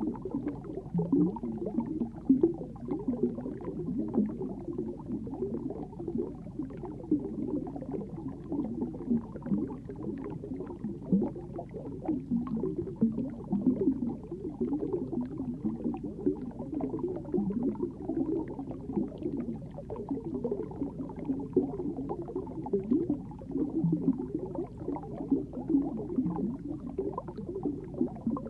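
Water heard through a submerged camera: a muffled, irregular bubbling and gurgling, with frequent small knocks.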